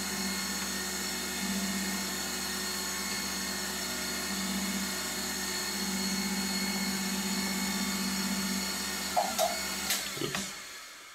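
LIP 515 benchtop surface grinder running and grinding a parallel bar on its magnetic chuck: a steady whine from the spindle and wheel, with a low hum that swells and fades every second or two. Near the end come a few sharp clicks, then the spindle motor is switched off and winds down with a falling tone.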